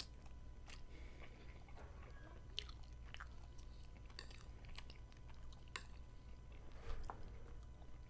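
Close-miked chewing of macaroni pasta, with scattered short clicks from a metal fork scooping food on a ceramic plate.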